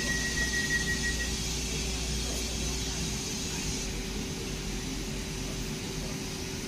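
Northern diesel multiple unit at the platform, its engine running with a steady hum. A hiss of air sounds over it for the first few seconds, and a high steady tone stops about a second in.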